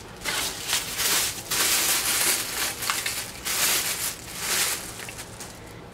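Plastic packaging bag crinkling and rustling in irregular bursts as hands pull a spray-gun handle out of it.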